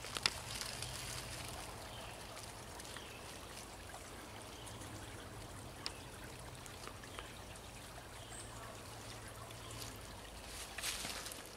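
Faint steady outdoor background hiss with a few small, scattered crackles, and a brief rustle of leaves near the end.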